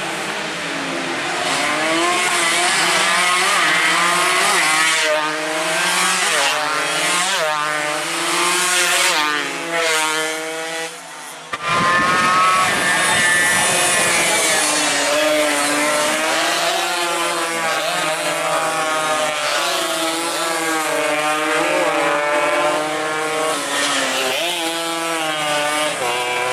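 Several two-stroke 116–125 cc underbone racing motorcycles at full race pace, their engines revving up and down as they go through the gears and pass by, several pitches overlapping. There is a brief lull about eleven seconds in, then the engine noise cuts back in suddenly.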